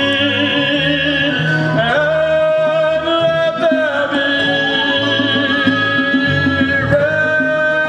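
Musical theatre number with orchestral accompaniment under long held notes sung with vibrato. The note changes a few times.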